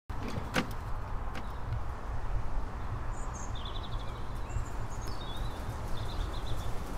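Outdoor street ambience: a steady low rumble with a bird chirping several short series midway, and two sharp clicks near the start.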